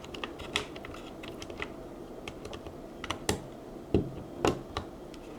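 Scattered plastic clicks and taps on a mechanical keyboard as a keycap is swapped, with a few sharper clacks in the second half.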